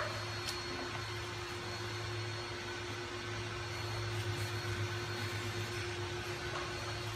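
Steady low machine hum with a faint constant tone, and a small click at the very start.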